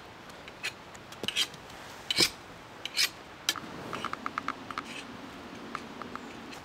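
Knife blades scraping against each other in several short, sharp strokes. From about halfway through, these give way to a run of faint, quick ticks over a low hum.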